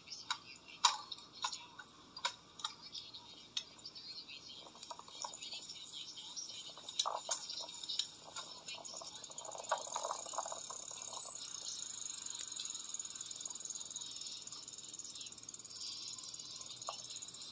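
A bicycle being ridden over pavement, heard through its mounted camera: scattered clicks, knocks and rattles, with a steady high hiss growing stronger about halfway through.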